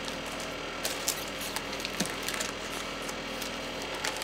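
A steady background hiss and hum with a few light knocks and soft rustles of paper items being handled and set aside.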